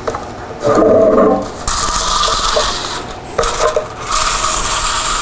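Plastic 3D-printer filament spool rubbing and scraping as it is pulled off its holder and handled, in two stretches of scraping noise.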